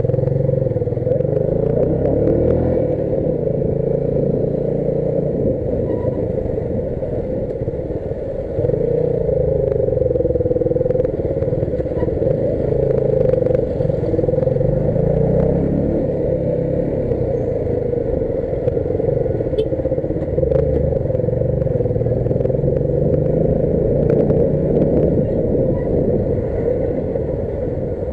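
Dafra Apache RTR 150's single-cylinder engine running while the motorcycle is ridden, its pitch rising and falling with the throttle. The engine gets louder about eight and a half seconds in.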